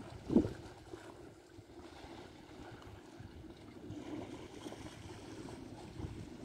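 Faint steady drone of a distant motorboat engine carried across the water, with a brief gust of wind on the microphone just after the start.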